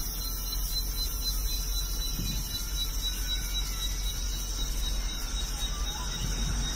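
Steady shrill insect chorus over a constant low rumble, with no distinct animal calls or impacts.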